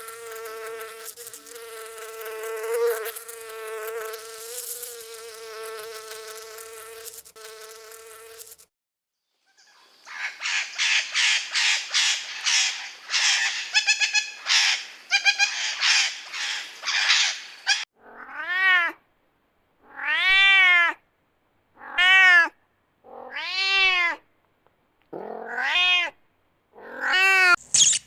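A steady buzzing drone for about eight seconds, then a run of rapid crackly clicking. In the latter part a cat meows six times, each meow about a second long and rising then falling in pitch.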